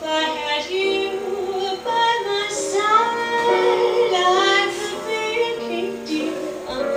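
Background music: a song with a sung melody over instrumental accompaniment.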